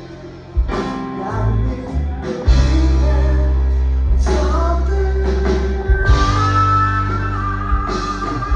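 Rock band playing live, with a sung vocal over guitar, bass and drums. The sound gets fuller about two and a half seconds in, with heavy sustained bass notes.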